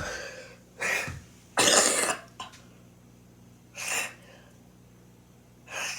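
A person coughing and clearing their throat in several short bursts, the loudest about one and a half seconds in.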